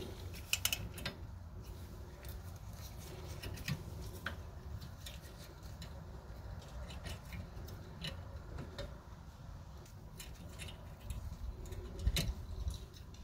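Faint, scattered small metallic clicks and scrapes: a parking-brake shoe hold-down spring and retaining cap being worked onto its pin inside the rear disc brake of a 1977 Corvette. A faint low hum runs underneath.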